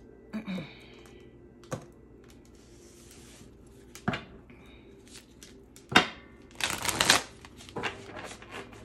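Decks of oracle cards handled on a wooden table: scattered sharp knocks and clicks as decks are picked up and set down, the loudest about six seconds in, followed by a short rattling burst of shuffled cards.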